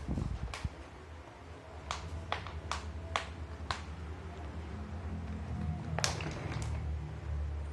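A series of short, sharp clicks or taps at irregular intervals, the loudest about six seconds in, over a steady low rumble.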